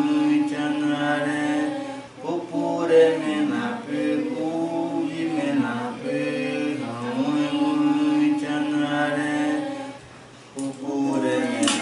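Male voices singing a chant in an indigenous language, in long held notes, with a short break about ten seconds in.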